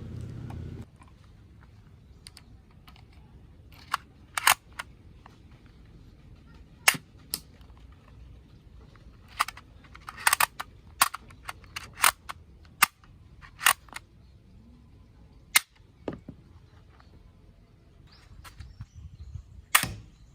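Toy cowboy pistol being fired: about fifteen sharp cracks at uneven intervals, several coming in quick pairs and runs around the middle.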